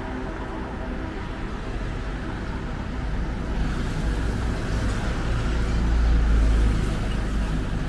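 A motor vehicle passing close on the road over background traffic: its engine and tyre rumble build to the loudest point about six seconds in, then fade.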